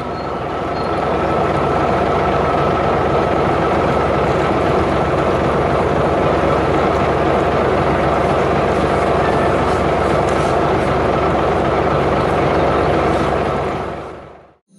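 Heavy vehicle engine running steadily, a constant drone with an even roar beneath it, fading out near the end.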